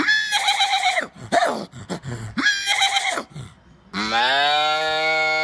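A person's voice imitating animal calls: a few short calls, then about four seconds in a long, low, steady moo in imitation of a cow.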